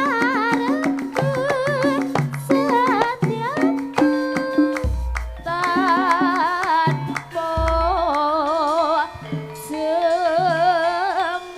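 Javanese gamelan music: a vocalist sings wavering phrases with heavy vibrato over ringing metallophone notes, with two deep low strokes near the middle.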